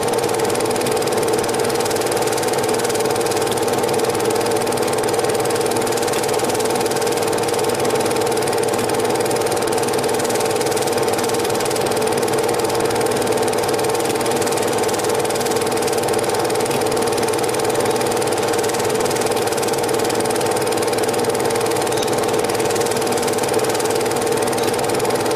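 Cine film projector running steadily: a constant mechanical whir with a steady hum.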